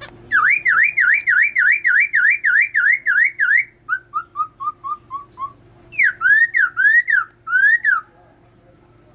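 Caged laughingthrush singing loudly in clear whistles: a fast run of about a dozen rising-and-falling notes, then a short series that steps down in pitch, then a few louder upswept whistles, stopping about eight seconds in.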